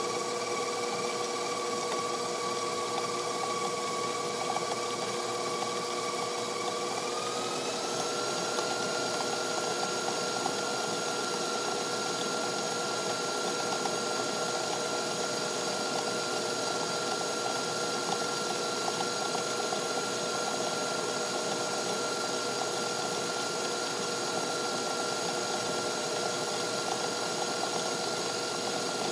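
Stand mixer running steadily, its flat beater creaming butter and sugar in a steel bowl. The motor whine steps up in pitch about seven seconds in as the speed is raised.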